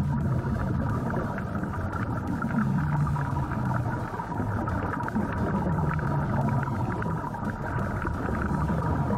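Muffled underwater noise picked up by an action camera in its waterproof housing: a low, wavering rumble with a steady thin hum and fine crackle.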